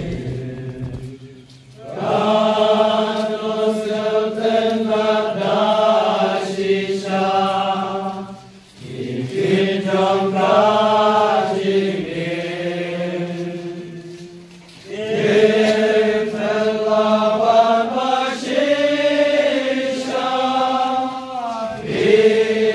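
Voices singing slowly together in long held notes, in phrases of about six seconds with short breaks between them.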